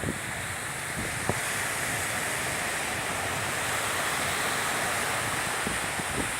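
Sea surf washing ashore, a steady rushing that swells through the middle, with wind blowing across the microphone.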